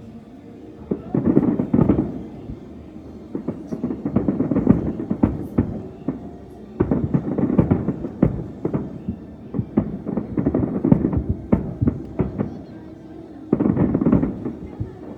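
Fireworks display going off in dense volleys of bangs and crackles, coming in waves every few seconds with short lulls between.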